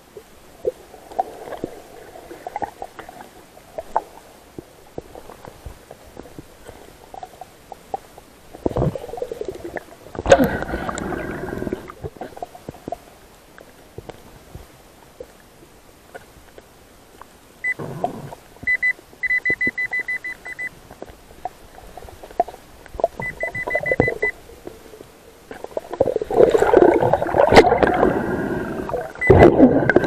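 An underwater metal detector gives a rapid, pulsing high beep just past halfway and again briefly a few seconds later, the signal of metal under its coil. Muffled underwater rushing and gurgling comes in bursts and is loudest near the end.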